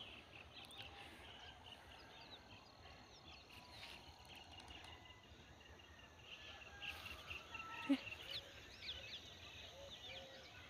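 Faint chorus of small birds chirping and twittering. About eight seconds in there is a louder call sliding sharply downward, followed by a few lower repeated calls.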